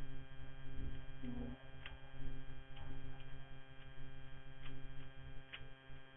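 Steady electrical hum, with a few short plastic clicks of a Rubik's cube being turned, spaced about a second apart.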